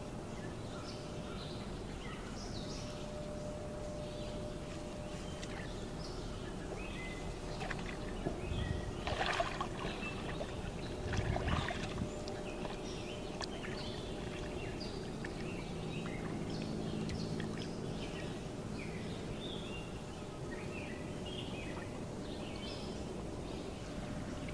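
Water sloshing and splashing as someone wades through a shallow muddy pond, with two louder bursts around the middle. Birds chirp intermittently over a steady outdoor hiss.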